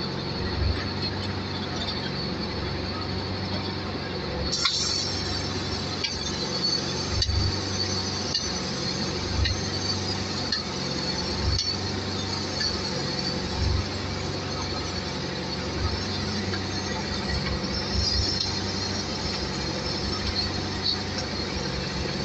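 Truck-mounted crane's diesel engine running steadily as it works the lift, with brief louder surges every couple of seconds and a steady high whine above it.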